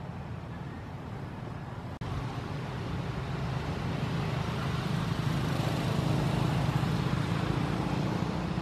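Motor vehicle engine rumble with road noise. After a cut about two seconds in it is louder and keeps building, as if the vehicle is drawing closer.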